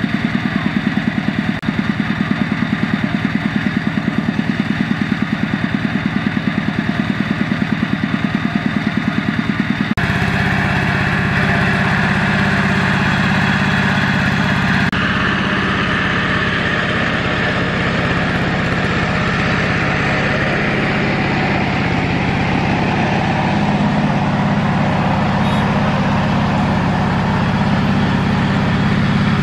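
Kubota RT140 two-wheel tractor's single-cylinder diesel engine running under load as it pulls a fully laden trailer of rice sacks. For about the first ten seconds it is a fast, even chugging beat; after a sudden change the engine sound becomes steadier and denser.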